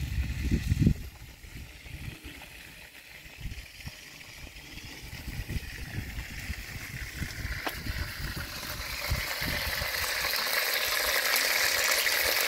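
A couple of dull thumps at the start, then food frying in hot oil: a sizzle that grows steadily louder through the second half.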